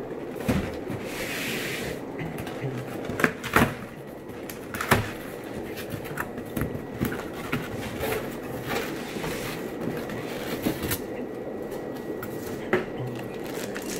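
Unpacking a shipping box: scattered knocks and clicks with a brief rustle about a second in, over a steady low hum.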